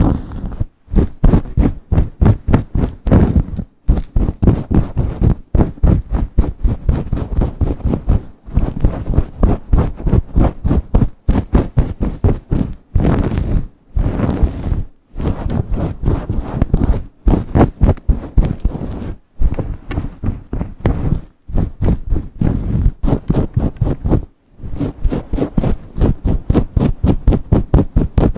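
Long pointed nails and fingertips scratching and rubbing fast through hair at the scalp: a loud, rapid rustling scrape at about five strokes a second, with short breaks every few seconds.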